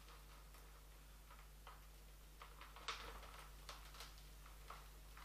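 Faint, irregular scratching and small clicks of a wooden chopstick raking soil out of a bonsai fig's root ball, the loudest click about three seconds in.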